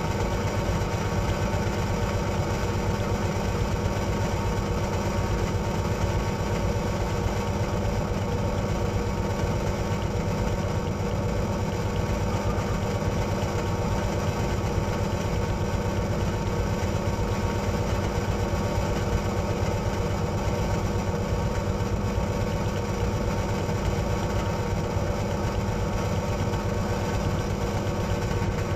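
Bench drill running steadily at speed, a continuous motor hum with a fast low flutter, with a 360° camera spinning in its chuck.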